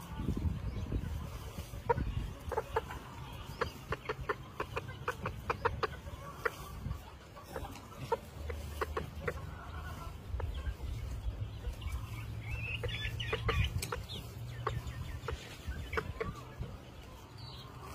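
Japanese bantam chickens clucking: runs of short, quick clucks, thickest in the first few seconds and again after the middle, over a low rumble.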